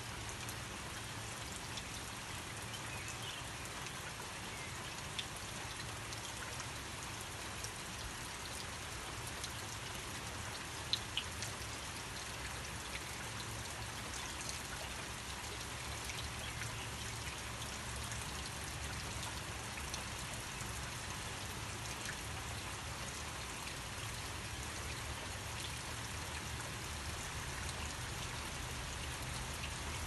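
Steady rain falling, with a few sharper drips, the loudest a little past a third of the way in.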